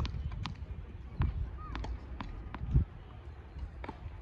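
A tennis ball bouncing on a hard court as a player gets ready to serve: a series of sharp pops at uneven intervals, over a low, uneven rumble.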